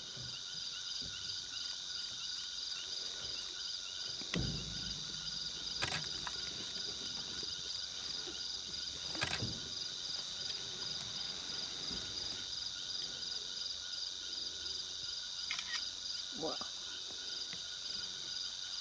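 A steady chorus of insects trilling high and rapidly pulsing, with a few faint knocks scattered through it.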